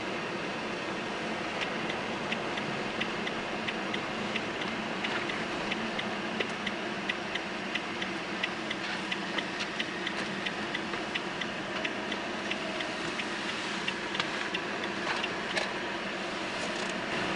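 Car cabin noise while driving on a snowy road, with an even ticking of about two to three clicks a second from shortly after the start until near the end: the turn-indicator relay clicking as the car nears a junction and turns.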